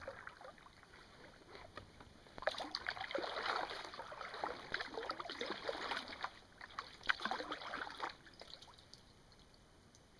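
Kayak paddle strokes in calm water: blades dipping and pulling, with splashes and drips running off them, starting about two and a half seconds in and stopping about eight seconds in.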